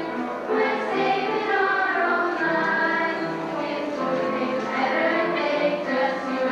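A large group of voices singing a hymn together in a church, with long held notes that move from pitch to pitch.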